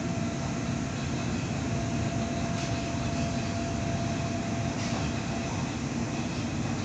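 Sydney Trains Waratah Series 2 electric train running at speed, heard from inside the carriage: a steady rumble and hiss, with a faint thin steady tone that fades out about five and a half seconds in.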